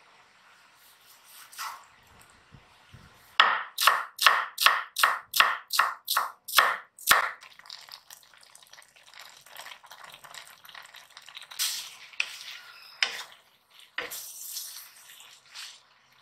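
A knife chopping on a wooden cutting board: about ten quick, even strokes, nearly three a second, starting a few seconds in. After that, a pan of meat bubbles faintly at a simmer, with a few scrapes and clinks of stirring near the end.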